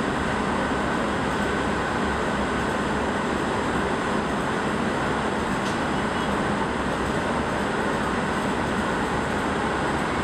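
Steady, even background noise with no distinct events: a constant rushing hiss that neither rises nor falls.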